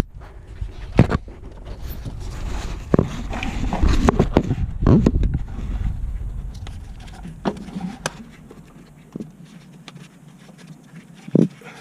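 Irregular scraping, knocks and sharp clicks as the starter cable is worked onto the terminal stud of a car's starter motor. The handling is busy for the first half and becomes sparser later, with a single louder knock near the end.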